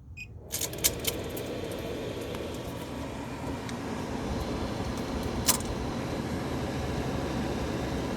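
Green Mountain Grill Jim Bowie Choice pellet grill switched on and running with a very loud, rough grinding noise, starting with a few clicks about half a second in and then holding steady, with another sharp click later. The noise comes from the auger drive, which had been cleaned and reassembled; the owner takes it to be the motor.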